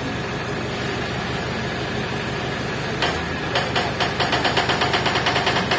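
Crane engine running with a steady low hum; about halfway through, a fast, even rattle of about seven clicks a second joins it.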